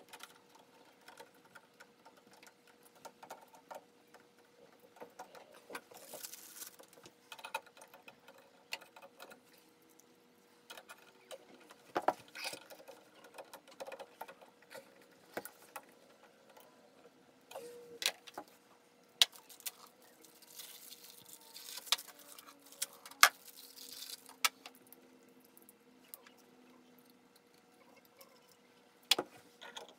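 Scattered light clicks, taps and knocks of small hard parts and hand tools being handled, with a few short rustles, over a faint steady hum.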